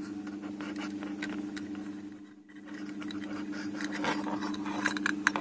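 Light scratching, rubbing and small clicks of a plastic phone-charger casing and its wires being handled, with more clicks near the end, over a steady low hum.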